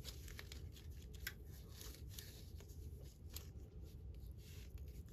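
Faint scattered light clicks and rubbing of hands handling a stainless steel watch bracelet.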